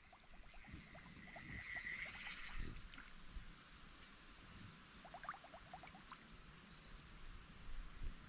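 Faint creek water running, with two short trills of rapid chirping notes, about ten a second, one at the start and one about five seconds in.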